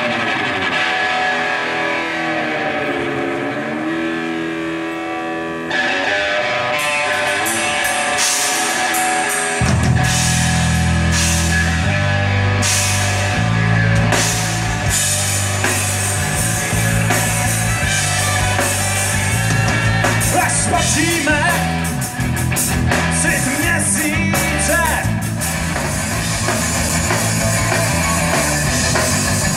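Live rock band playing: electric guitar alone at first, cymbals and drums coming in about seven seconds in, then bass and the full band from about ten seconds in, loud and dense.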